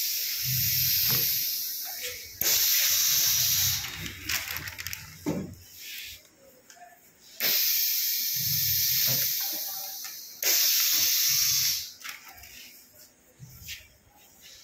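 Pneumatic bag sealing machine: loud bursts of compressed-air hiss from its air cylinders working the sealing bar, each starting suddenly and tailing off over a second or more. One is already sounding at the start, and new bursts begin about two and a half, seven and a half and ten and a half seconds in, with a couple of sharp knocks around four to five seconds in.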